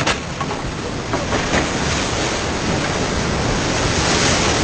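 Steady, loud rush of white-water river rapids.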